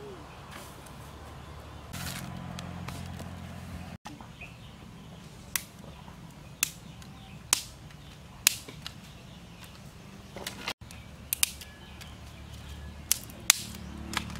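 Dry twigs snapping as kindling is broken by hand: about a dozen sharp, crisp cracks at irregular intervals, starting about five seconds in.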